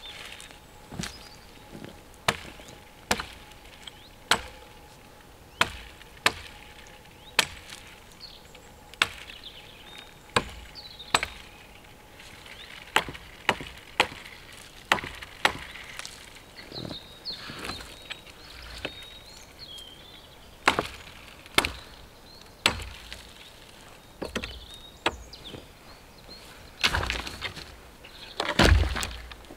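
Hatchet chopping side branches off a felled birch pole: sharp single chops at an uneven pace, roughly one a second. Near the end comes a louder, longer crash of wood.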